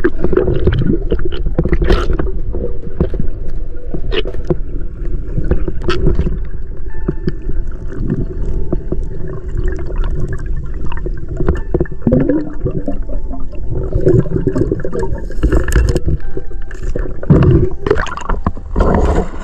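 Water sloshing and gurgling close to the microphone, over a steady low rumble, with scattered clicks and knocks.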